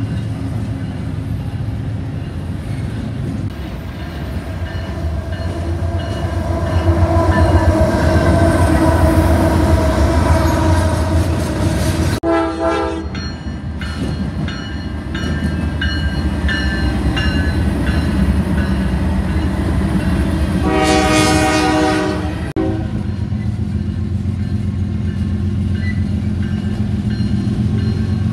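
Diesel freight locomotives rumbling past on the track, with a steady low engine and wheel drone. An approaching locomotive sounds its air horn: a short blast about twelve seconds in, then a longer, louder blast of several tones held about two seconds near the two-thirds mark.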